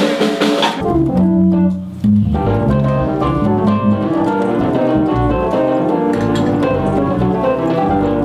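Electronic stage keyboard played with an organ sound: held chords over a moving bass line. A drum kit with cymbals is heard for about the first second, before the keyboard comes in.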